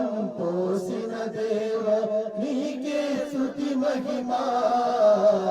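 Voices chanting a mantra in long, steady held notes.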